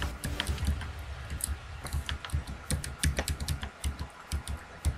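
Computer keyboard being typed on: irregular key clicks, about four a second.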